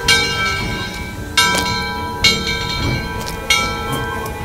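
Steam locomotive 630's bell ringing, four strikes about a second apart, each one ringing on as it fades, over the low rumble of the moving locomotive.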